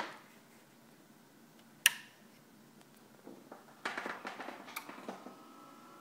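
Sharp clicks and knocks with rustling from equipment and cables being handled, the loudest a single sharp click about two seconds in. Just over five seconds in, a faint steady whine made of several tones begins.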